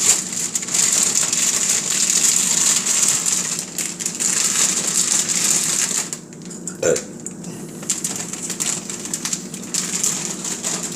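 Potato chip bag crinkling and rustling as chips are shaken out of it into a plastic container. The crinkling is dense for about six seconds, then turns quieter and scattered, with one small knock.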